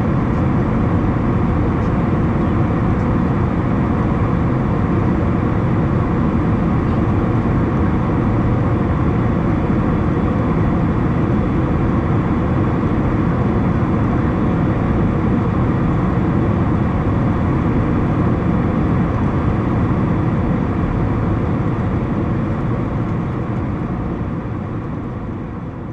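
Steady cabin noise inside an Airbus A321 in flight: the even rush of engines and airflow, heaviest in the low range. It fades out over the last few seconds.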